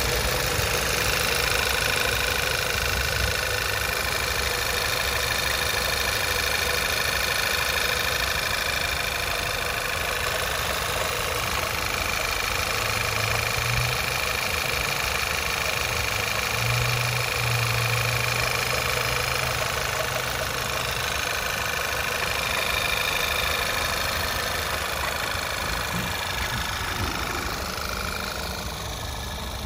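Volkswagen 2.0 TSI turbocharged four-cylinder engine idling steadily, heard from the open engine bay.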